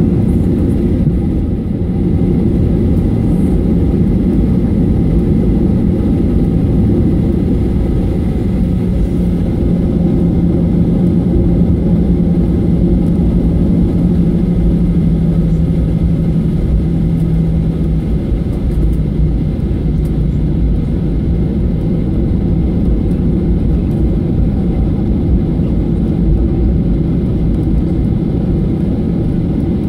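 Cabin noise of a Boeing 737-800 at taxi power, heard from a window seat over the wing: the CFM56 jet engines and the airframe give a steady low rumble with a constant hum.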